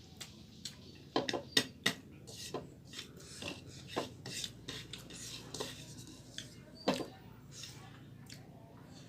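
A spoon clinking and scraping against a bowl while eating: irregular sharp clicks and knocks, the loudest about a second and a half in and again near seven seconds.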